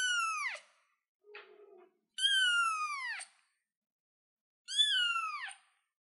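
Ginger kitten meowing three times: high, thin meows about half a second to a second long, each dropping in pitch at its end. A faint, short, low sound comes between the first two.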